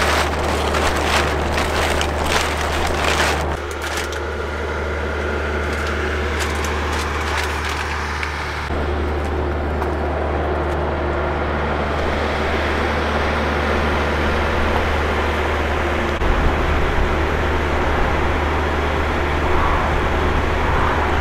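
Steady low drone of idling trucks and highway traffic. In the first few seconds there are knocks and rattles of gear being handled.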